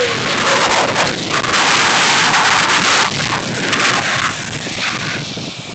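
Loud rushing noise of wind buffeting a snowboarder's camera microphone, mixed with the board sliding and scraping over the snow while riding downhill. It eases a little near the end.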